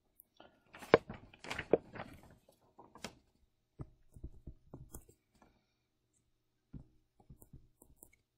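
Stylus tapping and clicking on a tablet surface while digits are handwritten: irregular clusters of light knocks, the sharpest about a second in, with sparser taps later.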